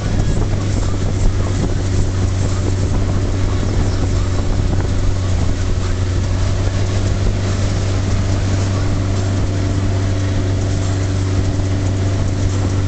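Motorboat engine running steadily while towing a wakeboarder, a low even drone, over the rush of the wake and wind buffeting the microphone.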